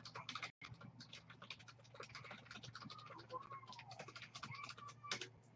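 Fast typing on a computer keyboard: a quick, faint run of key clicks.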